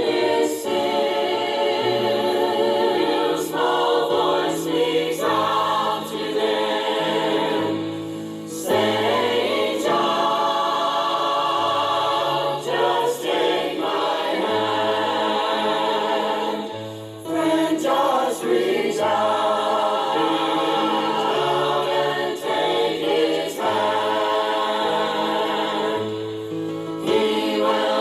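A choir singing a Southern gospel song, phrase after phrase, with short breaths between lines and a bass line moving under the voices.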